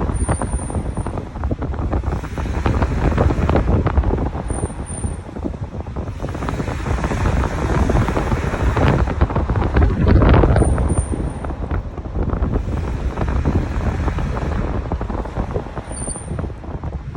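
Truck running, with heavy rumble and wind on the microphone. Its brakes give a short, very high squeal four times, every few seconds.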